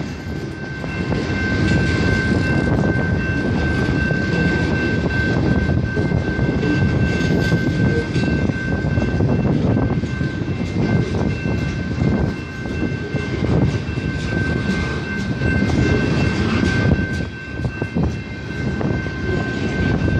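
Loaded covered hopper cars of a freight train rolling past at a grade crossing, the wheels rumbling and clicking steadily over the rails. A steady high-pitched tone rings over the train noise.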